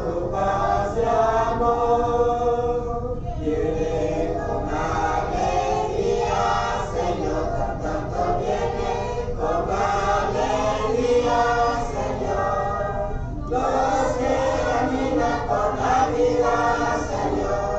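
A choir chanting, many voices singing held notes together in long phrases, with short breaks between phrases.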